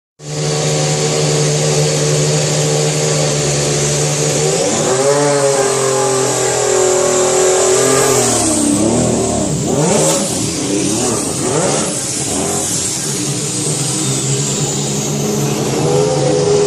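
Ferrari SF15-T Formula 1 car's 1.6-litre turbocharged V6 running loud at a steady engine speed. It steps up in pitch about four and a half seconds in, then sweeps down and back up in pitch through the middle seconds before settling again and rising near the end.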